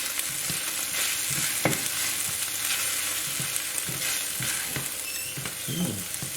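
Garlic-ginger paste and ground spices frying in oil in a curry pan, sizzling steadily while a utensil stirs them, with irregular scrapes against the pan.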